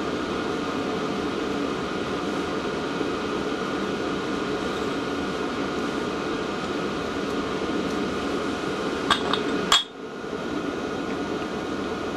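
Steady drone of a diesel-fired warm air heater running, with a steady high tone in it. About nine seconds in, two or three sharp metallic clinks as the parts of a tractor diesel injector pump are handled and taken apart. Just after the clinks, the drone briefly drops away.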